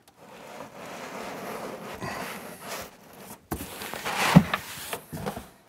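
Cardboard box and packing material rubbing and scraping as an Ultimaker 3 3D printer is worked loose inside its shipping box, with one sharp knock about four seconds in and a couple of smaller knocks after it.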